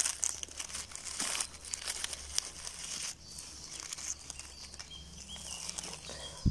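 Dry leaf litter and grass rustling and crackling as fingers and a small knife push it aside around a mushroom, with many small crackles throughout.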